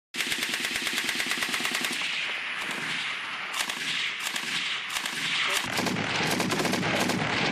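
Belt-fed machine guns firing in rapid, near-continuous bursts of shots. The fire starts abruptly.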